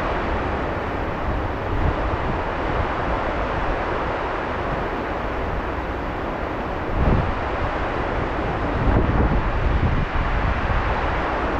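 Wind buffeting the microphone over a steady rushing noise, gusting harder about seven seconds in and again about nine seconds in.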